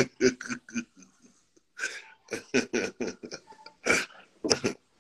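A man laughing in short, breathy bursts, pausing about a second in and resuming.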